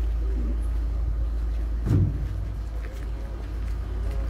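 Steady low rumble of a heavy diesel engine running, with a single thump about two seconds in.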